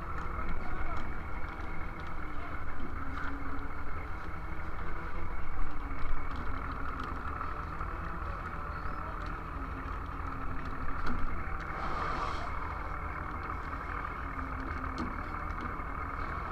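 A fishing boat's engine running steadily with a constant low hum, its loudness swelling and easing now and then.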